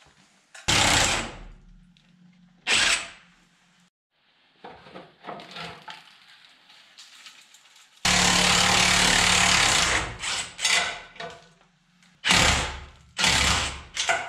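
Cordless impact wrench hammering on bolts at a vehicle's rear bumper in bursts: two short bursts in the first few seconds, a longer run of about two seconds in the middle, then several short bursts near the end, with quieter clinks of tools and parts in between.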